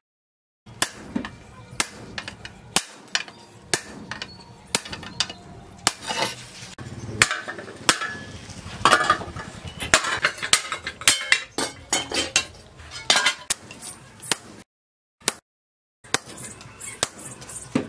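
Hand hammer striking a hot steel blade cut from a tractor disc on a steel post anvil: sharp metallic blows at an irregular pace, about one or two a second and thickest in the middle, broken by two short silences.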